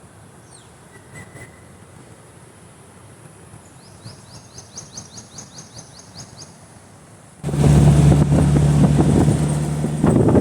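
Birds chirping, including a quick run of about a dozen high chirps in the middle. About three quarters of the way in the sound cuts abruptly to a loud, steady vehicle drone with rushing noise.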